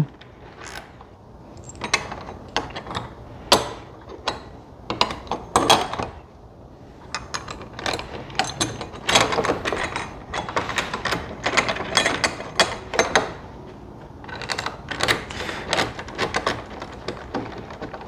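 Hand work on a smart deadbolt's metal mounting plate as it is fitted and screwed to the door: irregular clicks, taps and small metal rattles, coming in clusters.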